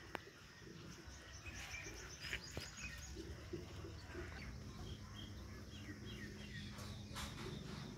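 Faint outdoor background with small birds chirping in quick short runs.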